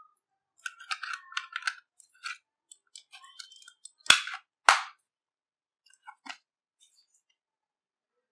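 Plastic battery cover of a Logitech MK345 wireless mouse pressed back into place, snapping shut with two loud clicks about half a second apart a little after four seconds in. Before it, light plastic rustling and small clicks from handling the mouse and cover.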